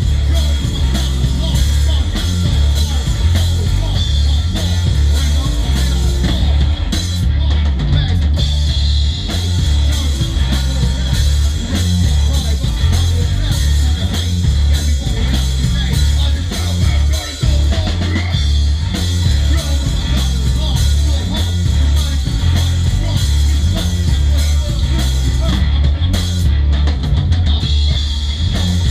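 Stoner rock band playing live in a small rehearsal room: a drum kit with bass drum and cymbals, electric guitar and bass guitar, and a singer over the band.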